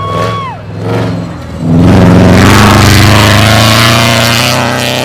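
Rally car engine at full throttle. It jumps sharply louder about a second and a half in, stays loud for about three seconds, then eases off.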